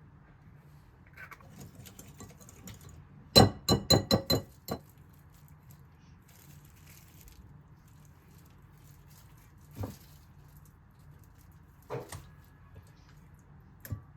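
Kitchenware clinking: a quick run of about six ringing clinks a few seconds in, like glass or ceramic being set down or tapped, then three single knocks spread over the rest.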